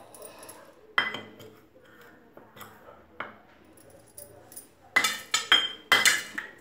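Steel bowl and spoon clinking against a metal kadhai as besan flour is tipped in: a few scattered clinks, then a quick run of about five louder clinks near the end.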